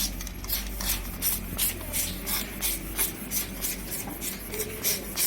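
Rhythmic scraping strokes, about three a second, over a steady low hum.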